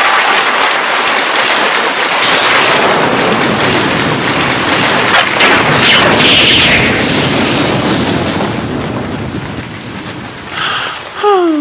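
Cartoon storm sound effects: heavy rain with rumbling thunder, loud at first and fading about ten seconds in. A short sliding pitched sound comes near the end.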